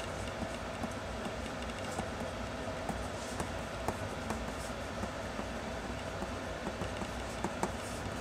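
A 0.5 mm mechanical pencil scratching across drawing paper in quick sketching strokes, with small scattered ticks, over a steady low hum.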